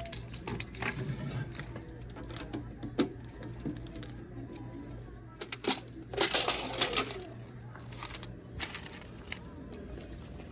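Hard little pieces clinking and rattling as a gumball vending machine is emptied or refilled: scattered clicks, then a longer, denser rattle about six seconds in.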